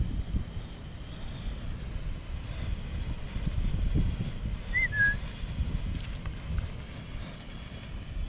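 Wind buffeting the camera microphone: a steady, fluttering low rumble in the forest, with one short high chirp about five seconds in.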